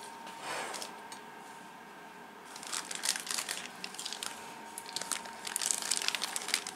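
Plastic bag around a whole packaged chicken crinkling as it is handled, a faint rustle at first and then a rapid run of crackles from about two and a half seconds in.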